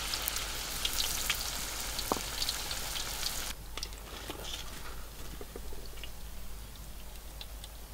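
Hot oil in a metal wok sizzling hard as thin batter is poured in, with scattered crackles. About three and a half seconds in it drops suddenly to a fainter sizzle with occasional pops as the fritter fries.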